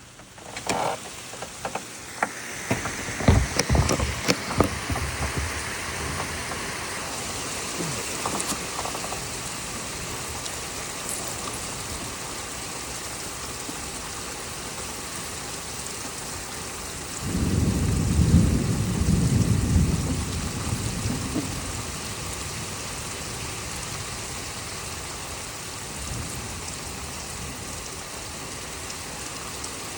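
Heavy rain falling steadily through a thunderstorm, with a loud low rumble of thunder starting about seventeen seconds in and lasting a few seconds. A few sharp knocks come in the first few seconds.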